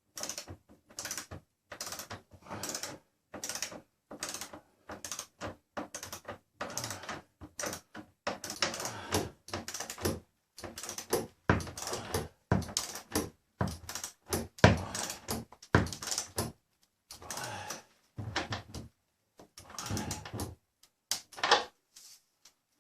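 Irregular mechanical clattering and scraping in short bursts with brief silent gaps between them.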